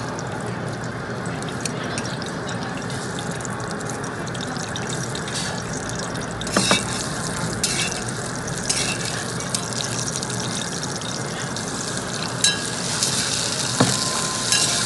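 Food sizzling in a hot stone pot, a steady hiss, with a few sharp clicks toward the end.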